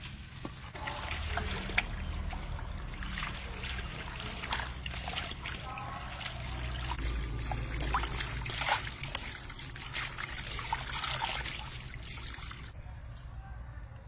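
Water trickling and splashing irregularly as lettuce and spring onions are rinsed in a woven bamboo basket; it stops about a second before the end.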